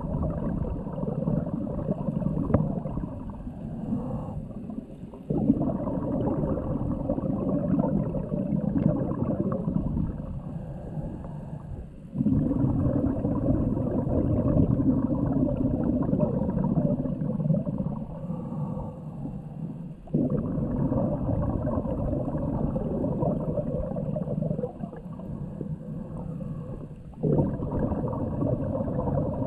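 Scuba regulator breathing heard underwater: muffled bubbling and gurgling that swells suddenly about every seven to eight seconds with each exhaled breath, then fades.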